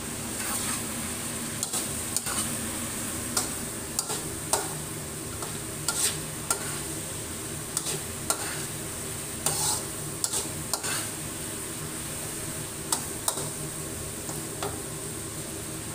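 Igado stir-fry sizzling in a wok, with a spatula scraping and knocking against the pan at irregular moments as the food is tossed.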